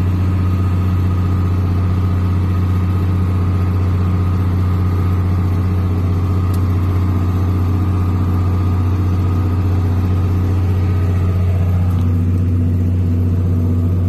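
Farm tractor's diesel engine running steadily under load, heard from inside the cab as a constant low drone with a fainter steady whine above it.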